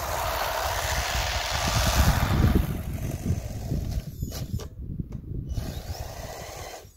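RC snowmobile's brushless electric motor and track running over packed snow, fading as the sled drives away, with an uneven low wind rumble on the microphone.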